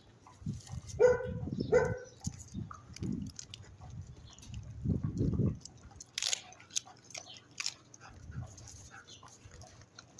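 Rottweiler guarding her food: two short barks about a second in, low growling a little later, then a few sharp snaps of the jaws.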